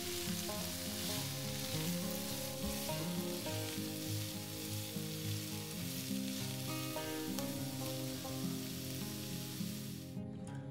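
Chopped vegetables sizzling in olive oil in a frying pan, a steady hiss that cuts off abruptly near the end, over light background music.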